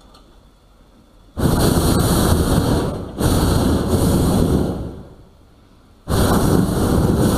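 Hot-air balloon propane burner firing in repeated blasts: a loud, steady roar that cuts in abruptly about a second and a half in, again just after three seconds, and again near the end, each blast lasting about two seconds.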